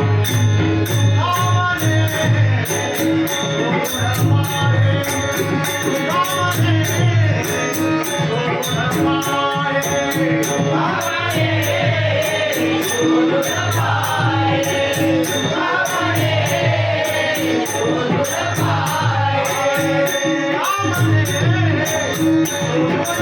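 Marathi devotional bhajan: a lead singer and chorus singing a gan to Ganesha. A hand drum and small cymbals keep a steady rhythm under the voices.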